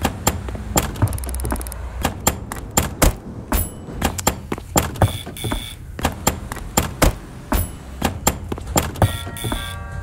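A rhythmic beat built from sharp knocks and clacks of door hardware, including door-knocker raps, with short high electronic beeps. Near the end comes a ringing doorbell chime of several tones.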